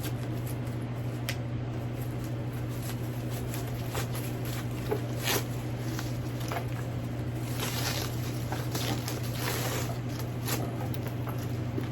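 Rustling and small clicks of a handbag, its strap and its dust bag being handled, with a denser stretch of rustling around eight to ten seconds in, over a steady low hum.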